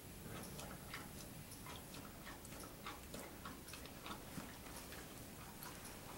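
Faint, irregular soft clicks and rustles as a mare noses at her newborn foal lying in straw.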